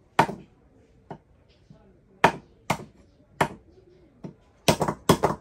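Cleaver chopping raw chicken on a round wooden chopping block: about eight sharp, irregular chops, with three in quick succession near the end.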